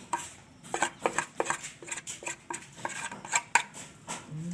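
A utensil clinking and scraping against a cooking pot as raw chicken and seasonings are stirred together: a quick, irregular run of sharp metallic clinks.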